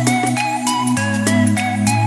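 Background music: a tune of short, bright struck notes over low bass notes that change about once a second.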